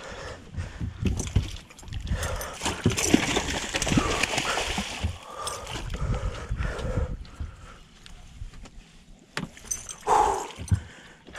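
A hooked muskie thrashing and splashing at the surface beside the boat as it is brought to the net, loudest from about two to five seconds in, then quieter splashes and knocks.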